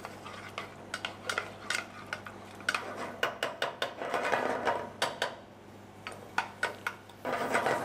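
Wooden spoon stirring chopped onion frying in oil in an aluminium saucepan: irregular light knocks and scrapes against the pan.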